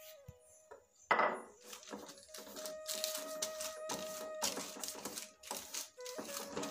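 Butter paper rustling and crinkling in quick, irregular bursts as hands press and smooth the sheet flat, starting with a loud crackle about a second in. A soft melodic background tune plays underneath.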